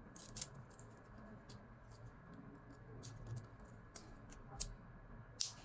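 Faint small clicks and taps of a wristwatch and small tools being handled, about half a dozen sharp ones scattered irregularly, the loudest near the end.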